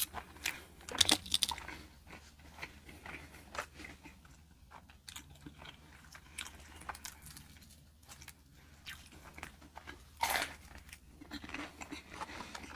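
A person chewing crisp fried food close to the microphone: a run of crackly crunches, the loudest about a second in and again near the end.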